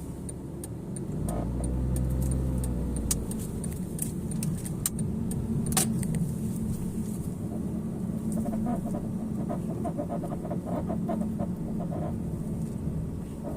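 Porsche 987 Cayman running, with a steady low vehicle hum and intermittent short creaks and clicks, bunching into a quick run a little past halfway: the ギシギシ creaking from the front right whose cause the owner does not know.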